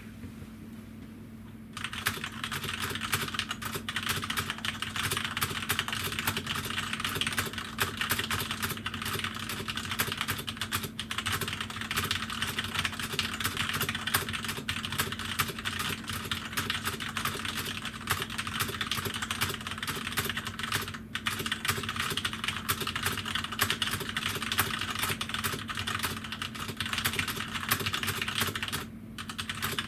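Rapid, continuous typing on a Corsair K65 mechanical keyboard with linear Cherry MX Red switches: a fast stream of key clicks that starts about two seconds in, with a few brief pauses. A steady low hum runs underneath.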